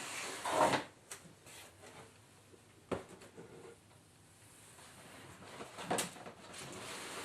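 Handling noises: rustling with a few knocks and clicks, the loudest under a second in, with sharp clicks about 3 and 6 seconds in.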